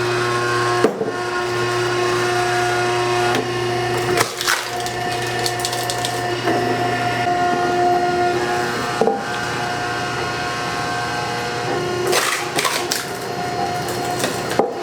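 A steady machine hum with several tones, broken by short clatters and knocks near 1, 4.5, 9 and 12.5 seconds in. A lower hum underneath stops about halfway through.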